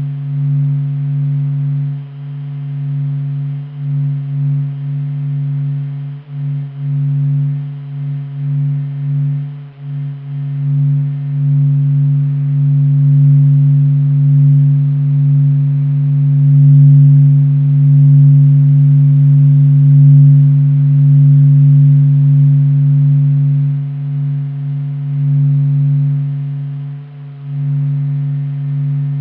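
Low, steady drone of a few held tones that swell and fade in loudness, presented as the sound of the Sun: a NASA sonification of solar data, without music.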